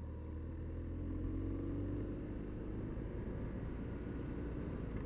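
BMW R1200 R air/oil-cooled boxer-twin engine running as the motorcycle rides along, heard from the rider's helmet. The engine note rises gently over the first two seconds, then holds steady.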